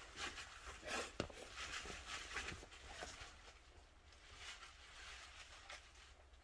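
Faint footsteps with light knocks and rustles of handling, including a few sharp clicks in the first three seconds, thinning out after that, over a steady low hum.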